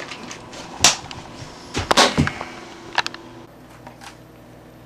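Plastic Rubik's Cube being twisted and knocked about: a few sharp clacks, one a little under a second in, a tight cluster around two seconds in that is the loudest, and one more at three seconds.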